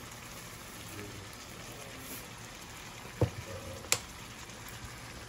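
Shell-on shrimp frying in garlic butter in a pan, a steady quiet sizzle, with two sharp clicks a little after three and about four seconds in.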